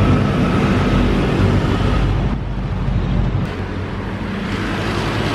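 Motorcycle engine running as the bike rolls to a stop, then idling more quietly after about two seconds, with wind noise on the microphone.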